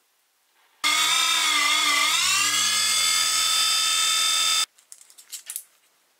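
Small electric power tool switched on, running with a steady motor whine that dips briefly in pitch and then holds, and switched off abruptly after about four seconds, followed by a few light clicks.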